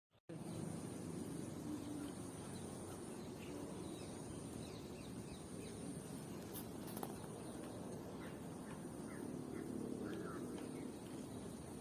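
Park ambience: scattered short bird chirps over a steady thin high-pitched tone and a low background rumble.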